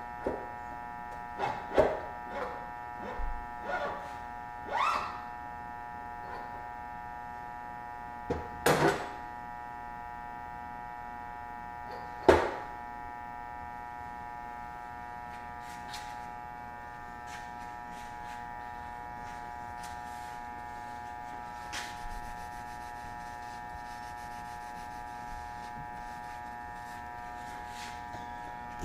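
A steady motor hum with several overtones throughout. Over it come a handful of knocks and clatters of metal parts being handled, all in the first dozen seconds, the loudest one about 12 seconds in.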